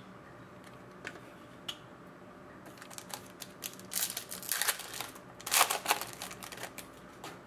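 Foil trading-card pack wrapper crinkling and tearing open, then the cards being slid out and handled: a run of small crackles and rustles, with louder bursts about four and six seconds in.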